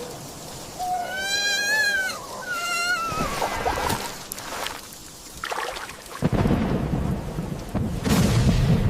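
Rain falling, with two short, wavering, high-pitched animal cries in the first three seconds. About six seconds in a sudden loud thunderclap breaks and keeps rumbling.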